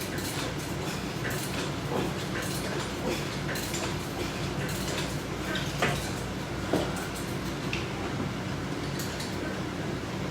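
Scattered light clicks and knocks of exercise equipment being worked, resistance bands and their attachment hardware, over a steady low hum.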